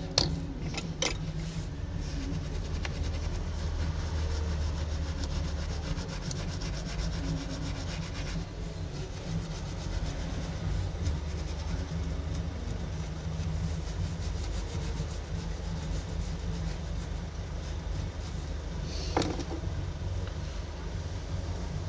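A brush scrubbing a water-damaged phone circuit board to clean it, a steady rubbing with a few light clicks near the start and one near the end, over a steady low hum.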